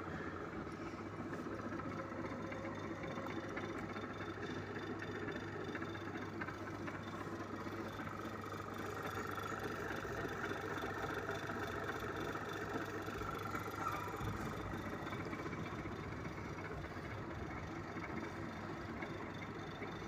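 16T02A benchtop lathe running steadily under power: an even motor hum with a high whine from the spindle drive.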